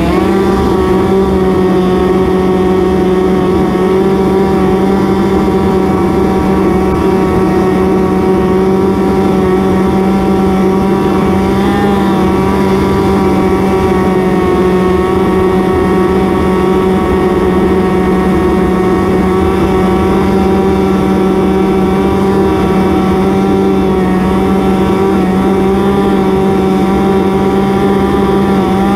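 Ski-Doo snowmobile engine running steadily under load while climbing a snow slope. Its pitch holds nearly constant, with a slight waver about twelve seconds in.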